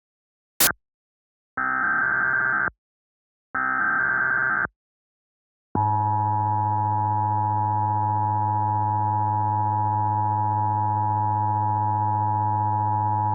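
Emergency Alert System test tones: a sharp click, then two roughly one-second bursts of EAS digital header data, then the EAS attention signal, a steady two-tone beep held for about eight seconds.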